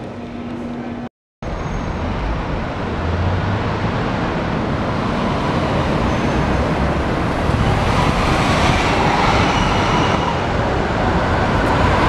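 After a brief silent gap about a second in, city street traffic noise that slowly grows louder as a city bus approaches along the road.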